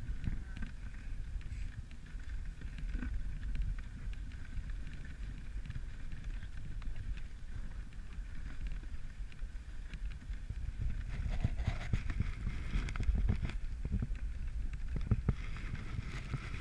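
Dog sled running over a packed snow trail: a steady rumble and hiss from the sled's motion, with scattered knocks and rattles in the second half.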